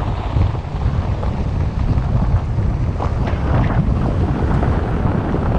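Wind buffeting the camera microphone outdoors: a loud, uneven low rumble.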